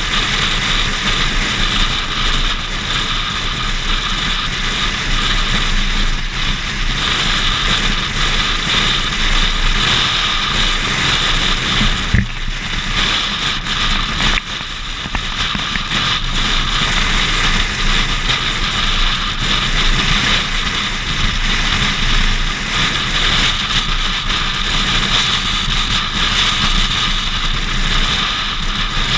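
Steady wind rush and road noise from a car driving at highway speed, heard through a camera mounted outside on the hood, with a single sharp knock about twelve seconds in.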